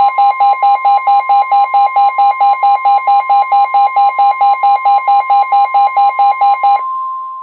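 A Midland WR-120 weather radio's alert alarm beeping about four times a second over the steady NOAA Weather Radio 1050 Hz warning alarm tone. The beeping stops near the end, leaving the steady tone alone. The tone announces a new warning, here a severe thunderstorm warning.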